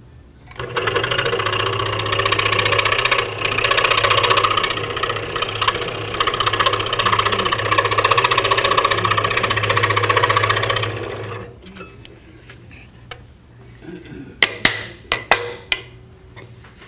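Scroll saw running and cutting a dovetail in a wooden board, the blade's rapid up-and-down chatter over a steady motor hum. It starts about a second in and stops after about ten seconds, followed by a handful of sharp clicks near the end.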